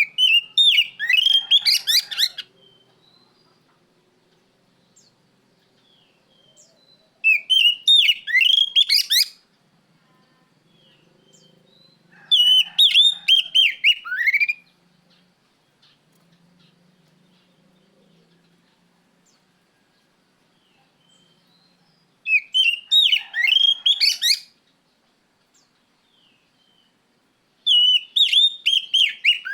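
Oriental magpie-robin (kacer) singing in five loud phrases of rapid, whistled notes, each about two seconds long, with pauses of several seconds between them.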